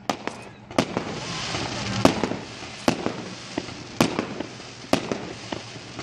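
Fireworks going off: sharp bangs of bursting shells about once a second, some louder than others, with a hissing crackle swelling between about one and two and a half seconds in.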